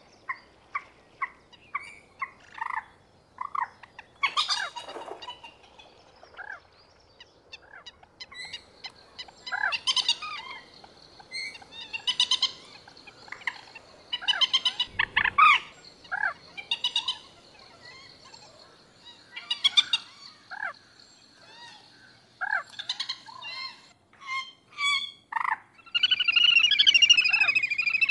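Common moorhen calling: a run of short, sharp calls, some given singly and some in quick series. Near the end they turn into a dense, rapid chattering.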